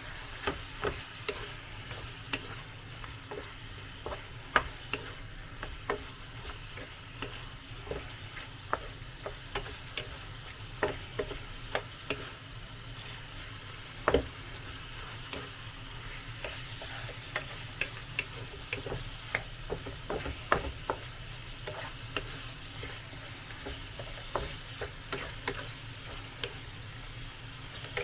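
Chicken afritada frying with tomato paste in a pan, sizzling steadily while it is stirred. A spoon knocks and scrapes against the pan in irregular clicks throughout.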